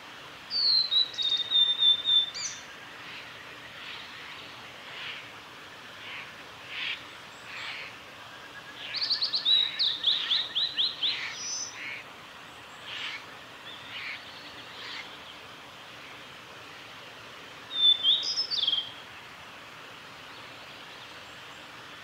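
Male blue-and-white flycatcher singing: three loud phrases of clear high whistles that end in quick rapid notes, the first about half a second in, the second about nine seconds in and the third about eighteen seconds in, with fainter high notes between them.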